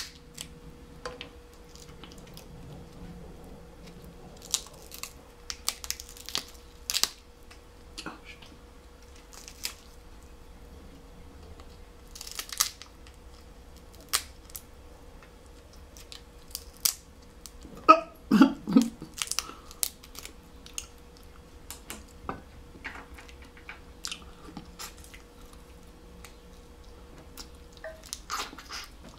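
Snow crab shell being cracked and picked apart by hand, with scattered sharp crackles and clicks and some chewing. A louder cluster of cracks comes a little past halfway.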